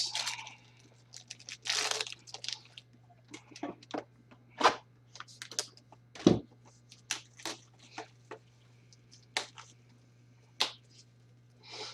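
A pack of trading cards being torn open and the cards handled: a short tearing crinkle about two seconds in, then scattered small clicks and snaps of card and wrapper. A steady low hum runs underneath.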